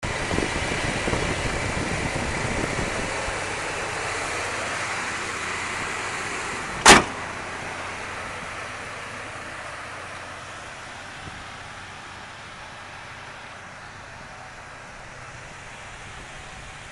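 2002 Dodge Ram 2500's 8.0-litre Magnum V-10 idling with the hood open. About seven seconds in, the hood is slammed shut with one sharp bang, and after that the idle is fainter.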